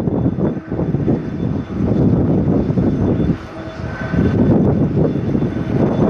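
Jet engines of a Japan Airlines Boeing 777 rumbling as it rolls along the runway, mixed with gusty wind buffeting the microphone. The rumble dips briefly a little after three seconds in.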